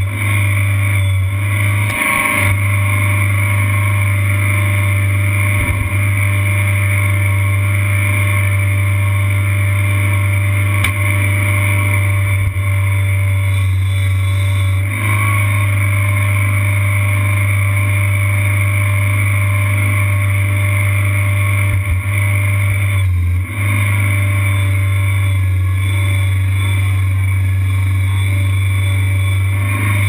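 Engine of a tracked Kanga Kid mini skid steer running steadily, heard close up from on the machine, with brief dips in level about two seconds in and again around two-thirds of the way through.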